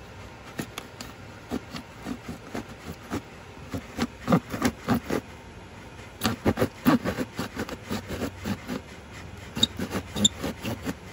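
Small serrated hand blade sawing through a foam skull, with irregular crunchy scraping strokes that come thickest in the middle.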